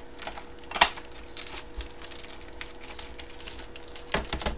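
Paper and plastic packaging rustling and crinkling as a box of slabbed comics is unpacked by hand, with one sharp click about a second in and a louder burst of handling near the end.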